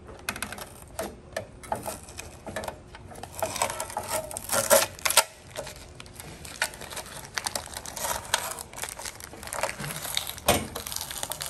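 Clear filament packing tape being peeled off a sheet-metal stove part, with a plastic bag of screws crinkling as it is worked free: an irregular run of crackles, clicks and rustles, with a few sharper snaps about halfway through and near the end.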